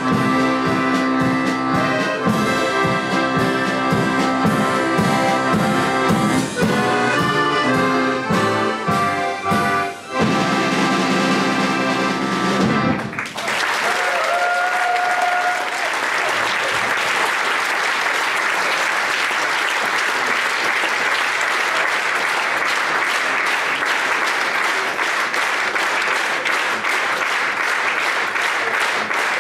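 An accordion orchestra plays the closing bars of an arrangement and ends on a long held chord about 13 seconds in. The audience then applauds steadily, and a short whistle rises over the applause just after it begins.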